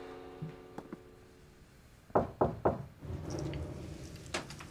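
Knocking on a glass-paned wooden door: three quick raps about two seconds in, then more knocking near the end.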